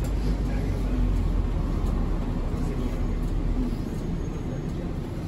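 Hiroden city bus on the move: a steady low engine and road rumble heard inside the bus, easing slightly about four seconds in.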